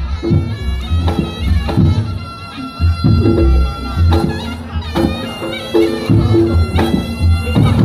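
Reog gamelan accompaniment: a slompret, the Javanese reed shawm, plays a reedy melody over repeated drum beats and struck percussion.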